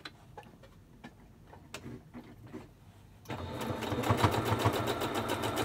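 A few light taps and clicks, then about three seconds in a domestic electric sewing machine starts up and runs steadily. Its needle stitches at a fast, even rate while top-stitching through fabric layers.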